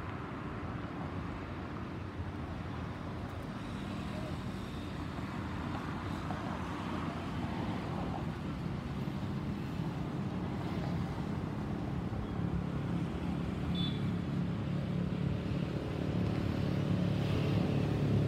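Airbus A320's twin CFM56 turbofan engines heard from below: a distant low rumble that grows steadily louder as the jet approaches.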